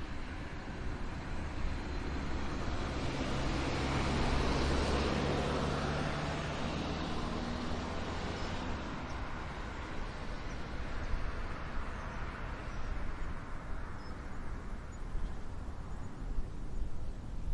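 A motor vehicle passing by: a steady low engine hum with road or rushing noise swells to its loudest about four to six seconds in, then slowly fades away.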